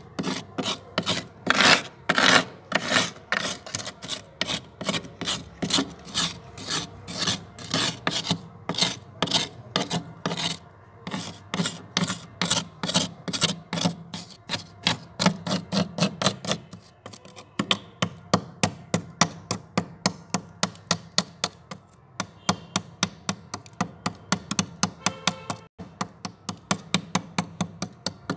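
Metal spoon scraping packed freezer frost in quick repeated strokes, several a second. The strokes turn shorter and crisper about halfway through.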